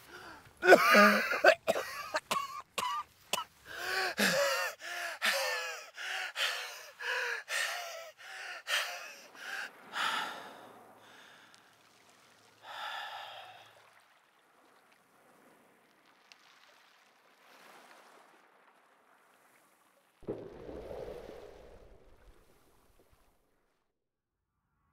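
A man's laboured, rasping gasps for breath, rapid and strained, slowing and fading to faint breaths after about ten seconds. A soft, low rush of sound comes about twenty seconds in.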